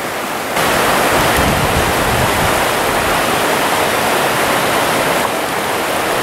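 Rushing water of a shallow trout-stream riffle: a steady, loud wash that steps up in level about half a second in.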